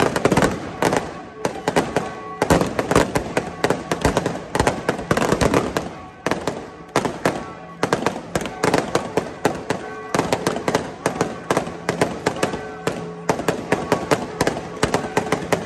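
Aerial fireworks bursting overhead in a rapid, unbroken barrage of bangs and crackles, many a second.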